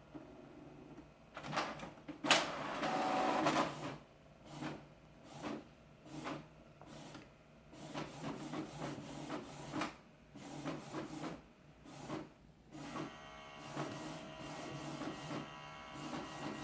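Canon TS6220 inkjet printer running a colour copy job: a sharp click about two seconds in, then a run of short mechanical strokes about once a second, turning into a steadier pitched motor whine over the last few seconds.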